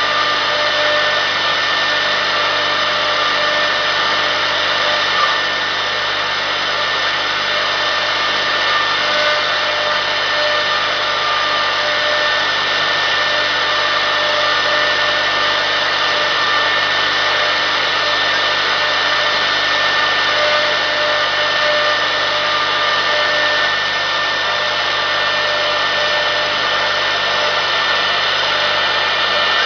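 CNC router spindle running steadily, its bit cutting into a block of wood turned on the rotary axis. A constant whine with a few fixed tones rides over the cutting noise.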